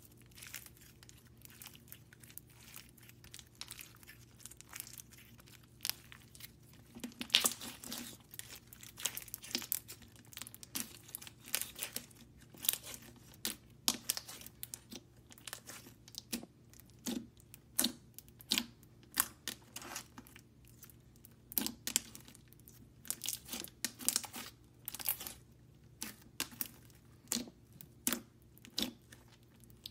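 Thick, glossy slime with foam beads being handled and pressed, giving irregular short crackles and sharp pops.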